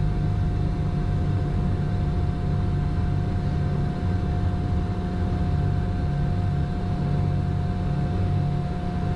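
Cessna 340's twin turbocharged six-cylinder piston engines running steadily at low power as the plane taxis onto the runway and lines up for takeoff, heard from inside the cabin, with a thin steady tone above the engine drone.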